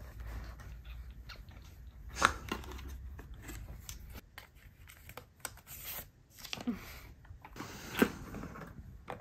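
Paper packaging being rustled and torn open by hand during an unboxing, with scattered small clicks and two sharp taps, about two seconds in and near the end.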